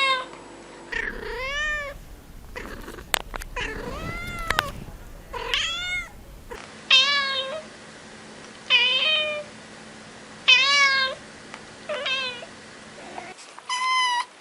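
Kittens meowing: a string of short, high calls, each rising then falling, with a few sharp clicks around the middle.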